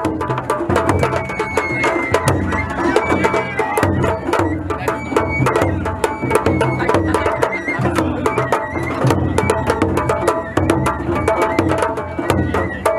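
Japanese festival music: a large taiko drum on a festival float beaten in a fast, steady rhythm, with sharp metallic clicks and a thin high melody running over it.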